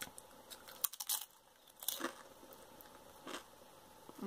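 Biting into and chewing a crunchy Doritos Roulette tortilla chip: several separate crunches spread through the chewing.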